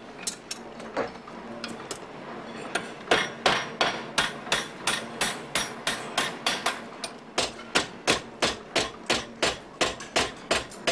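Hand hammer striking a steel pin held upright in a metal die, making a hinge by hand: a few scattered blows, then from about three seconds in a fast, even run of metal-on-metal strikes, about three a second.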